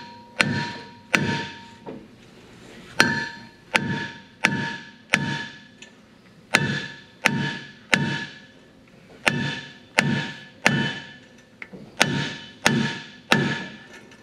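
Hammer blows on the stuck rear brake rotor of a 2017 Dodge Ram 1500. They land about one every 0.7 s, with two short pauses, and each blow leaves the steel disc ringing. The rotor is stuck on its hub and is being knocked loose.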